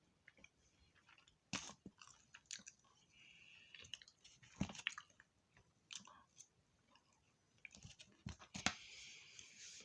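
A person chewing food close to the microphone: soft wet mouth clicks and smacks, with a few sharper, louder ones at intervals.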